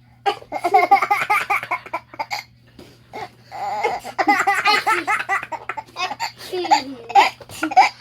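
A baby laughing hard, in two long runs of rapid, repeated laughs: the first starts just after the beginning, the second about three and a half seconds in, with shorter bursts near the end.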